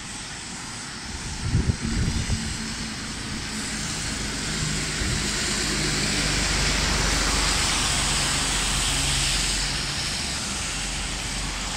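Steady rush of the River Suir in flood, mixed with heavy rain. Wind buffets the microphone about two seconds in. A low engine-like hum, most likely passing road traffic, joins in the second half as the noise swells and then eases near the end.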